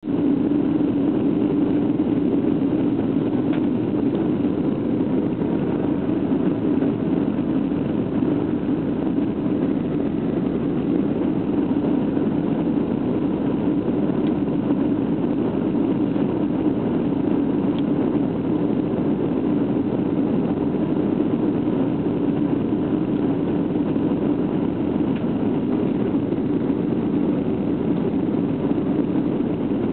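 Steady cabin noise of a jet airliner descending for landing: an even engine-and-airflow roar, strongest in the low-mid range, with a faint steady whine above it.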